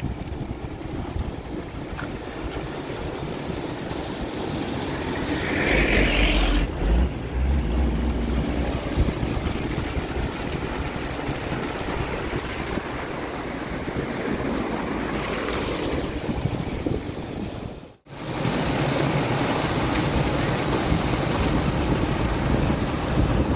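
Shallow stream water rushing and splashing over rocks in a steady roar, with wind rumbling on the microphone for a couple of seconds about six seconds in. After a cut late on, the rushing is louder and hissier, close to white water pouring over a small drop.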